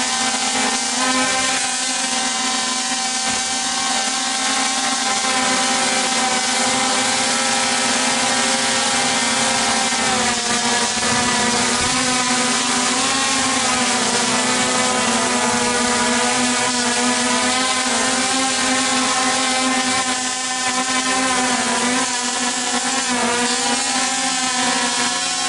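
DJI Phantom 3 Advanced quadcopter hovering just overhead, its four propellers buzzing loudly and steadily, the pitch wavering now and then as the motors correct.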